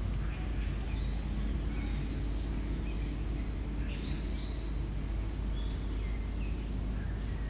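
Outdoor ambience: a steady low rumble with scattered short, high chirps of birds.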